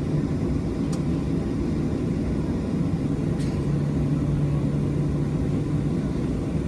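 Boeing 737 jet engines heard from inside the passenger cabin: a steady low drone with a constant hum, and a couple of faint ticks.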